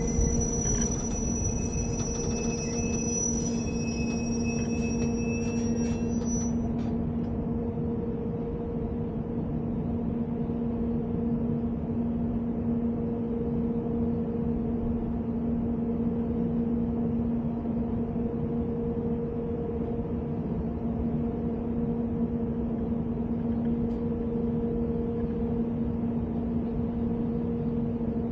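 Glacier Express metre-gauge electric train running steadily, with a constant low hum over the rumble. A thin high-pitched squeal rides on top for about the first six seconds, then stops.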